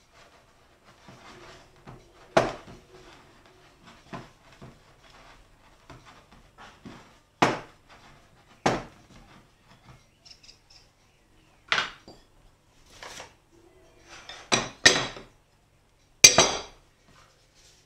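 Wooden spoon working stiff bread dough in a glass bowl, knocking against the bowl in irregular clacks, with a louder, ringing clatter near the end.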